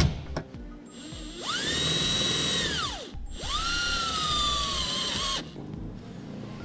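Milwaukee cordless driver driving a self-tapping screw into the truck bed's sheet metal in two runs: a short burst of about a second and a half, then a longer one of about two seconds whose whine sinks in pitch as the screw seats. A sharp click comes at the very start.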